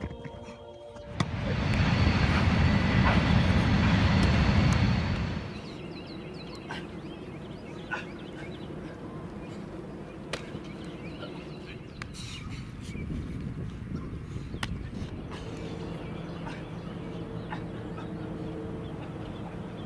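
Outdoor field ambience: a few seconds of loud, even rushing noise that stops abruptly, then a quieter steady background with scattered light clicks and knocks.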